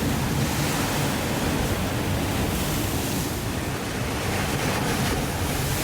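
Ocean surf rushing and breaking in a steady roar of noise, with wind noise on the microphone.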